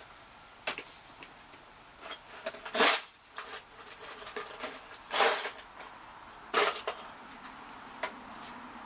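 Short clunks and scrapes of a corded drill and boards being handled on a sawhorse bench, with the two loudest, each lasting about a third of a second, about three and five seconds in.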